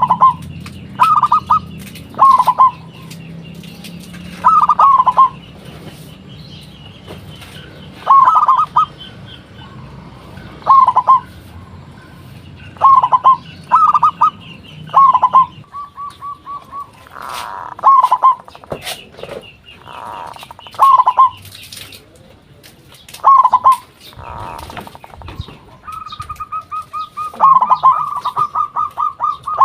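Zebra dove (local perkutut) cooing: loud, short bursts of rippling notes every second or two, with a fast run of repeated notes near the end. Fainter chirping of other small birds runs behind.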